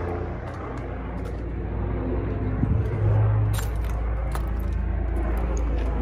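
A steady low mechanical hum that swells a little about three seconds in, with scattered light clicks and rattles.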